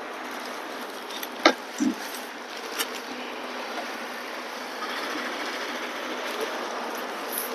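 Packaging being handled as a boxed camera is unpacked: cardboard box and plastic wrapping rustling over a steady hiss. A few sharp knocks come in the first three seconds, the loudest about one and a half seconds in.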